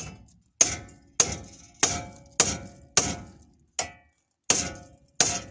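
Hammer blows on the steel spindle of a 1999 Dodge Ram 1500 at the tie rod end, pounding to break the tie rod end's taper loose. About nine sharp, ringing metal strikes, a little under two a second.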